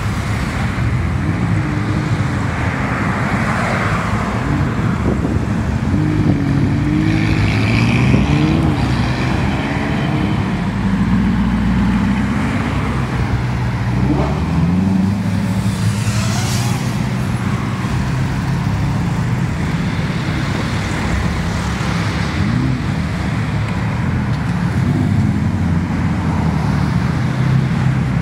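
Sports car engines running and accelerating as cars drive off one after another, the engine pitch rising several times over steady road noise.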